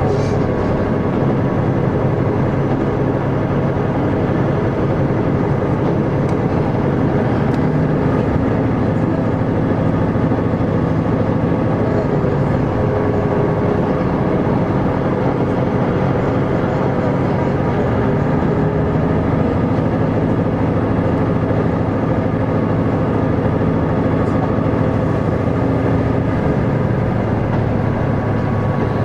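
KiHa 75 diesel railcar running between stations, heard from inside the car: a steady diesel engine drone over the running noise of the train. The engine note shifts slightly a few seconds before the end.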